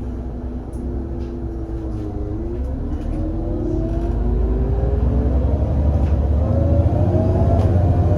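Irisbus Citelis 18 articulated bus's IVECO Cursor 8 six-cylinder CNG engine and ZF Ecomat automatic gearbox pulling away under acceleration: a low rumble that grows steadily louder with a whine rising in pitch, and light rattles from the bus body.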